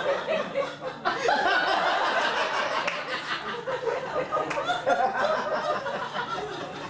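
Audience laughing, the laughter dipping briefly and swelling again about a second in.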